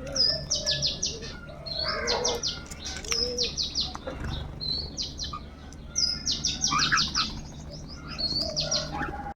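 Birds calling. Quick runs of five or six short, high chirps repeat several times, with lower, gliding call notes in between.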